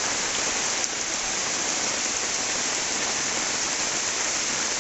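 A steady, even hiss like heavy rain or static, which starts abruptly just before and holds unchanged, with a faint click about a second in.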